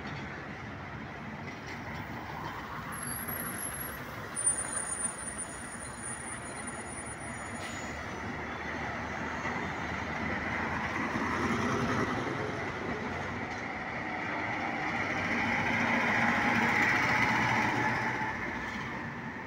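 Heavy trucks driving past on a city street, including a garbage truck and grain trucks towing trailers. Their engine and tyre noise swells twice as trucks go by, and there is a brief high-pitched squeal about four seconds in.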